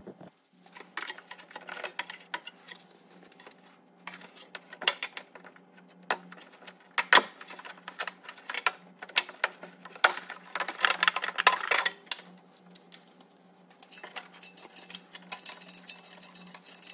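Irregular clicks and rattles of plastic clips and wiring as a NOx sensor and its wiring loom are unclipped and pulled free, with a busier burst of rattling about ten to twelve seconds in.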